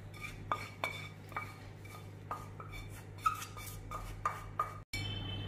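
Wooden spatula scraping and knocking against the inside of a small non-stick pan as the chilli-oil mixture is scraped out, a run of irregular light clicks and taps.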